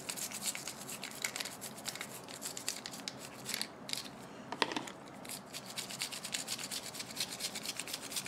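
Toothbrush bristles scrubbing the metal air cap of an HVLP spray gun in rapid, irregular strokes, cleaning primer residue from it.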